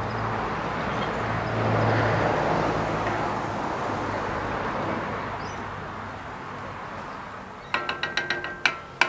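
Thick curry being stirred with a wooden spoon in a cast iron camp oven over a gas burner, a steady scraping, simmering noise. Near the end comes a quick run of sharp knocks with a brief metallic ring, the spoon tapping against the pot.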